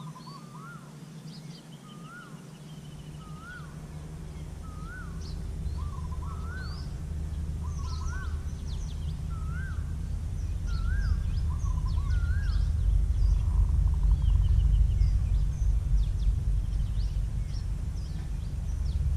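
Outdoor birdsong: one bird repeats a short rising-and-falling call about every 0.7 s for around twelve seconds, with other birds chirping higher. Under it is a low rumble that swells from about four seconds in.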